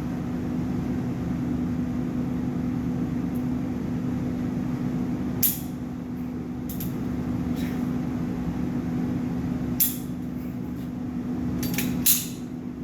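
Gunshots at a shooting range: several sharp cracks at irregular intervals, over a steady low hum.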